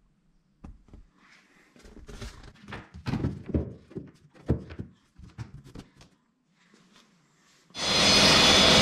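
A plywood panel knocking and thumping against the wooden cabinet as it is fitted into place: a string of irregular knocks. About a second before the end, a Makita sliding miter saw's motor starts and runs loudly.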